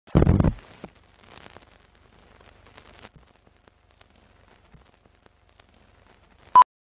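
Film-leader countdown sound effects: a loud low thud at the start, then faint crackle and scattered ticks like old film running through a projector, and one short loud beep near the end, the countdown's sync pop.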